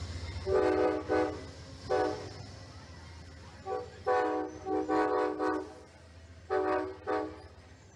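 Amtrak locomotive air horn sounding a playful run of about nine short blasts in quick groups, over the low rumble of the train.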